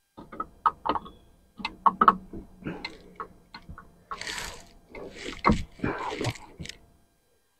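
Irregular metallic clicks and clinks of a drive chain rattling against a new oil pump as the pump is fitted up against the engine block, with a few short rustling scrapes in between.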